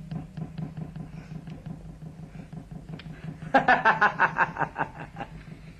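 A loud cackling laugh of rapid bursts, from about halfway through for nearly two seconds, over a steady ticking of about four clicks a second and a low hum.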